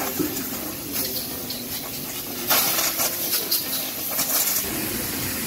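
Hissing spray in bursts, loudest from about two and a half seconds in to nearly four, with a few light metal knocks.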